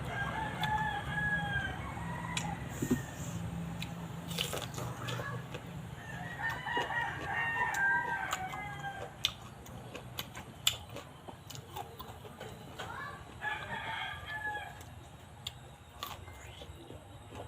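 Rooster crowing three times, each crow a pitched call lasting a second or two, over a low steady hum.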